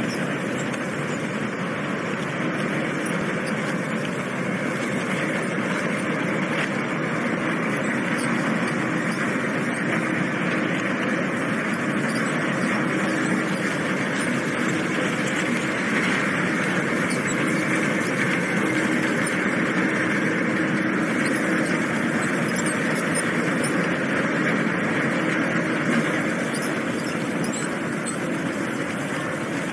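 Engines of the car ferry Sumoto running as the ship moves close past the quay: a steady low drone.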